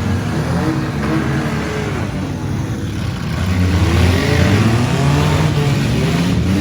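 Several six-cylinder demolition derby cars' engines revving, their pitches rising and falling over one another, getting louder about three and a half seconds in.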